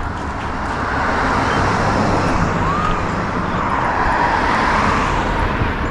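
Road traffic noise, a steady rush of passing vehicles that grows louder about a second in.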